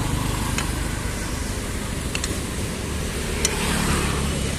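Steady rumble of street traffic, with a few light clinks of a metal spatula against the sprout pan and plate as boiled bean sprouts are scooped out.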